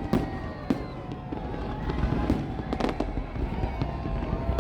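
Aerial fireworks bursting: several sharp bangs, a few of them close together, over a steady low rumble from the display.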